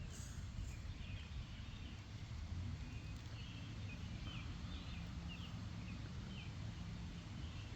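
Faint outdoor ambience: a steady low rumble with scattered short, high chirps from small animals, most between about one and six seconds in.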